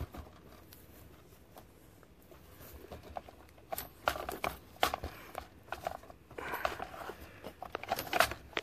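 Security-camera cable being handled and pulled down through a hole in the wall plate among blown-in attic insulation: scattered rustles, scrapes and light clicks, sparse at first and busier after about three and a half seconds.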